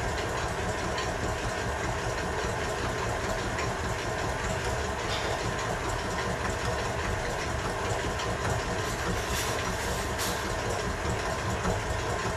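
Older KitchenAid stand mixer running steadily, its beater creaming softened butter and sugar in the steel bowl.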